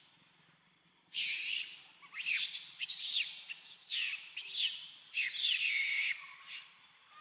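Baby monkey screaming: six or seven shrill, wavering screams, each under a second long, starting about a second in.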